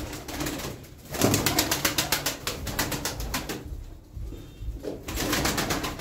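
Domestic tumbler pigeons flapping their wings as they are shooed up off the loft floor, in rapid fluttering spells: a long one from about a second in and a shorter one near the end.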